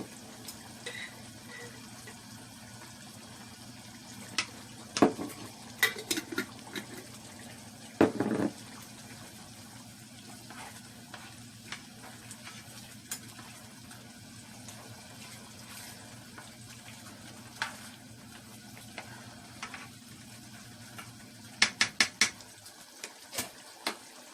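Chicken and onions sizzling in a pot as a spoon stirs them, with sharp clacks of the spoon against the pot a few times, in a cluster near the end. A steady low hum runs underneath.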